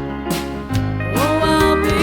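Music with a steady beat and sustained instrumental tones; a gliding melody line comes in about a second in.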